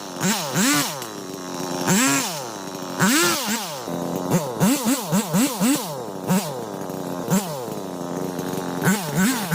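Vulcan two-stroke chainsaw idling, its throttle blipped again and again so the engine revs up and drops straight back, several times in quick succession around the middle and again near the end.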